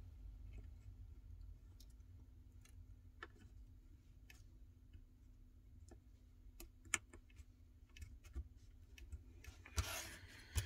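Quiet, scattered small clicks and taps as fingers press the new screen's flex-cable connectors onto the iPhone 11's logic board, a few sharper clicks near the end, over a faint steady hum.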